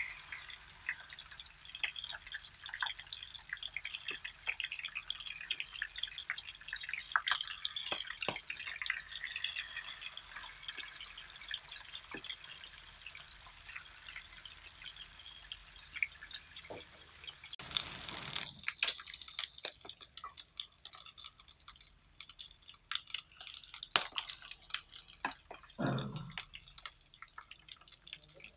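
Pork belly frying in hot oil in a nonstick frying pan, the fat sizzling with dense fine crackles and pops. About two-thirds of the way in there is a louder rush of sizzling, and near the end a short, lower-pitched sound as the meat is handled with chopsticks.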